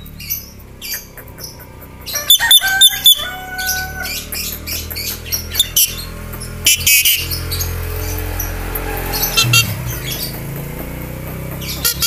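Caged Javan myna (jalak kebo) calling: sharp clicks and chirps, short steady whistles, and harsh squawks, with a low rumble in the middle.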